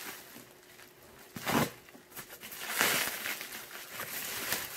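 Plastic mailer bag and bubble wrap crinkling and rustling as a tightly packed parcel is pulled open, with louder rustles about a second and a half in and again around three seconds in.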